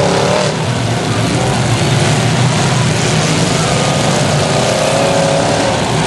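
Demolition derby cars' engines running and revving together in a loud, constant din.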